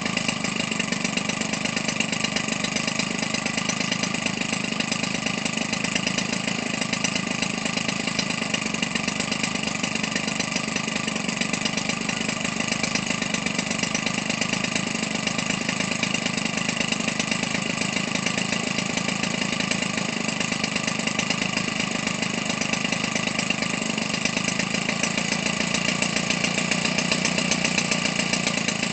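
Weedeater Featherlite 25cc two-stroke engine, converted for an RC airplane, with a gutted muffler and a welded-on exhaust pipe, running at a steady speed while it turns an 18x6 propeller.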